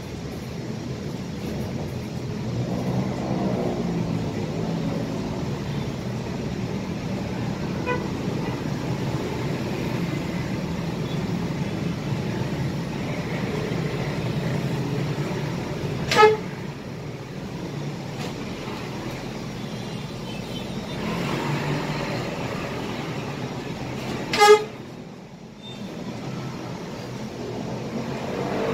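Scania K320 IA city bus's diesel engine running, heard from the driver's cab, swelling twice as the bus pulls. Two short, high vehicle-horn toots, about eight seconds apart in the second half, are the loudest sounds.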